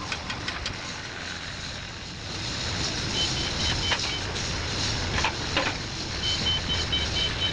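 Steady construction-site machinery noise with a few sharp metal knocks, and a rapid high-pitched warning beeper of the kind fitted to cranes and site vehicles, sounding for about a second midway and again for about two seconds near the end.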